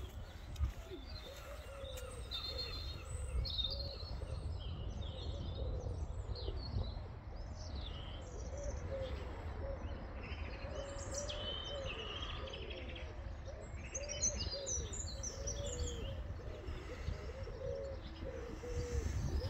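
Birds: a pigeon coos again and again, while small birds chirp and twitter higher up, over a low rumble.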